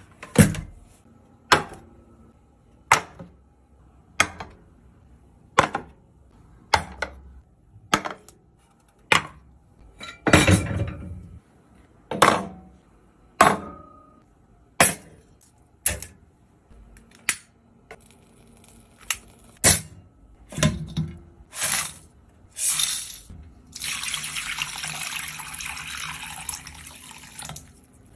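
A run of short, sharp knocks and clinks, about one every second or so, as objects are set down on a wooden table one after another. Near the end comes about three and a half seconds of water pouring into a metal hot-pot pan.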